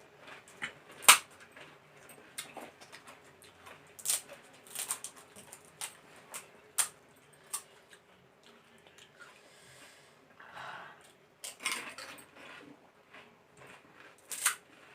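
Crisp pani puri shells crunching while being eaten quickly, a string of irregular sharp crackles, the loudest about a second in.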